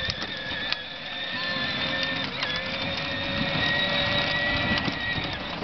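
Electric drive motor of a battery-powered John Deere ride-on toy utility vehicle whining steadily as it drives along, with a brief dip in pitch about two seconds in.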